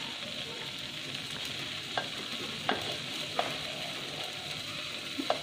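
Chopped onions, curry leaves and green chilli sizzling as they fry in milk cream (malai) in a clay pot: a steady crackling hiss, with a few light clicks about two, three and five seconds in.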